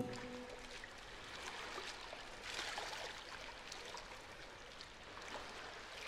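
Faint water lapping and sloshing: an even rushing hiss with a few slightly louder splashes.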